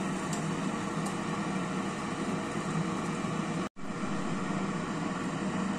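Air fryer running at 185 °C just after being started, its fan giving a steady whir. The sound drops out for an instant a little over halfway through.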